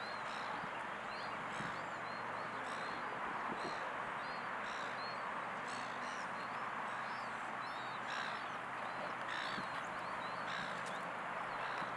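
A bird repeating short, high chirps about twice a second over a steady outdoor hiss.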